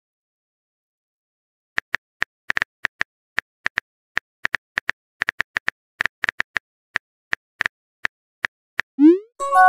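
Smartphone on-screen keyboard click sounds: a couple dozen quick, irregular taps as a message is typed, starting about two seconds in. Near the end a short rising whoosh and a chime mark the message being sent.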